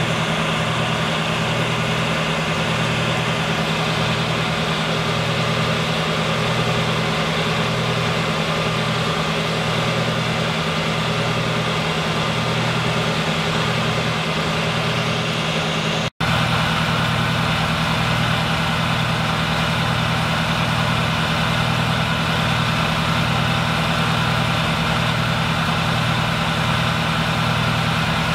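Aerial ladder fire truck's diesel engine running steadily at a fast idle, a constant heavy hum with an even hiss over it. There is a momentary dropout a little past halfway.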